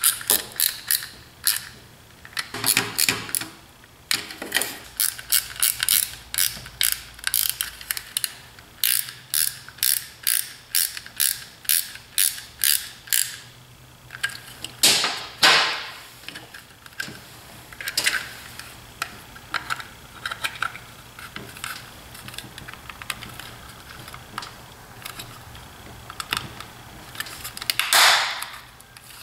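Ratcheting screwdriver clicking in quick runs of strokes as small screws are driven into a plastic tool case, the runs thinning out about halfway. Two louder, longer handling noises come about halfway and near the end.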